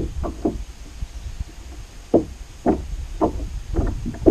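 Hollow knocks on a plastic kayak hull, about two a second with a break of a second or so early on, over a low wind rumble on the microphone.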